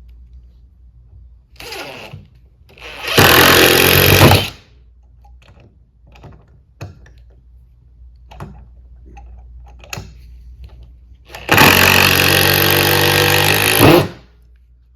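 Cordless impact driver hammering Phillips screws into wood in pilot holes, in two loud bursts: a short drive about three seconds in and a longer one of about two and a half seconds near the end. A brief weaker whir comes just before the first, and small handling clicks fall between.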